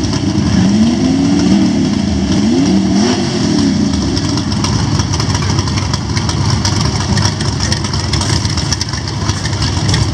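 Drag-racing Ford engines revving at the starting line. The pitch rises and falls several times in the first few seconds, then the engines run on steadily and loudly.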